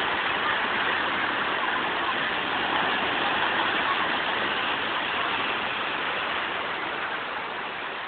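Sea surf breaking and washing over a concrete ramp, a steady rushing of foaming water that swells a little midway and eases near the end.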